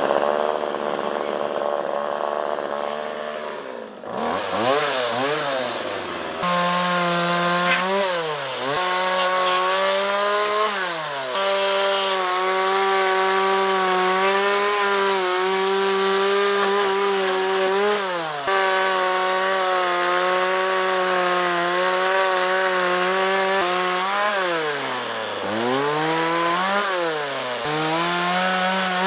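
McCulloch MAC 3818 two-stroke chainsaw running warm, revving up and down again and again, with long stretches held at high revs while it cuts through tree branches.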